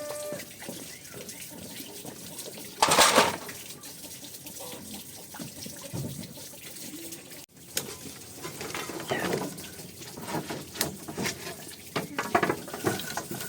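Water running and splashing, as from a tap into a sink or basin, with a loud splash about three seconds in and scattered knocks later on.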